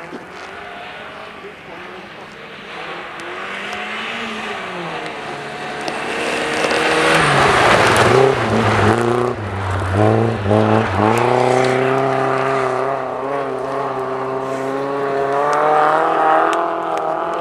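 Rally car engine at speed on a snow stage, growing louder as it approaches and loudest as it passes close about eight seconds in, with a hiss of tyres and thrown snow. The engine note then drops sharply several times before holding steady at high revs as the car pulls away.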